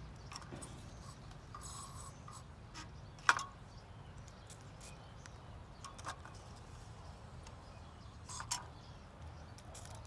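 Faint low hum with a few short, sharp knocks or clicks; the loudest comes about three seconds in and two smaller ones follow later.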